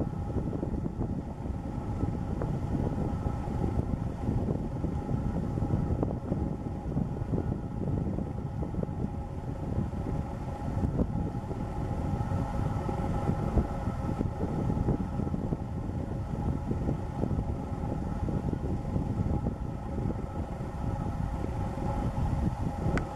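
Wind buffeting the microphone, a steady rough low rumble, with a faint steady hum of a few tones above it.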